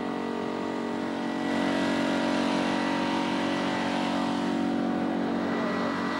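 Several 600 cc sport motorcycle engines running together on the starting grid, a steady multi-toned drone that grows louder about a second and a half in.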